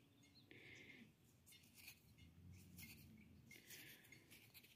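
Near silence, with faint scratching and rubbing sounds.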